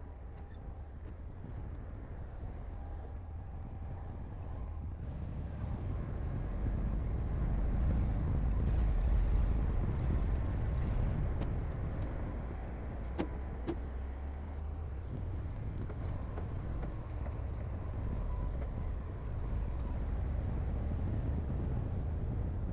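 Heavy diesel earthmoving equipment running with a deep, steady rumble that builds to its loudest a little before the middle, then eases slightly. Two sharp clicks come about halfway through.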